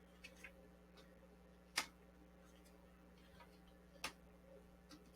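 A few irregular sharp taps of tarot cards being handled and set down on a table, the two loudest a little under two seconds and about four seconds in, over a faint steady hum.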